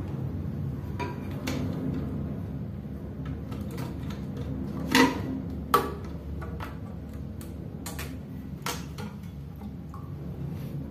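Scattered clicks and knocks of plastic and rubber parts inside a ceramic toilet cistern as a black rubber flapper is fitted onto the flush valve by hand, with two sharper knocks about five and six seconds in.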